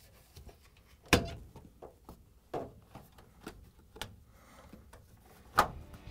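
Plastic refrigerator base grille being pushed into place, its side tabs going into their clips: a series of sharp plastic clicks and knocks, the loudest about a second in and near the end.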